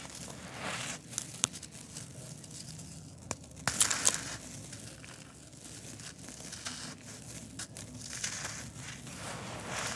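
Hands crushing a dry concrete disc: gritty crunching and crackling as it crumbles, with sharp snaps as pieces break off, loudest about four seconds in.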